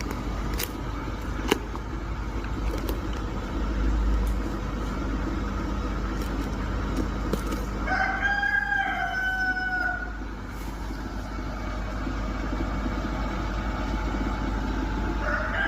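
A rooster crowing once, a call of about two seconds about halfway through, with another crow starting at the very end. A few sharp knocks sound in the first couple of seconds over a steady background hum.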